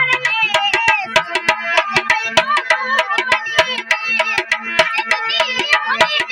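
Desi folk music between sung lines: a fast hand-drum beat under a wavering melodic line and a steady drone.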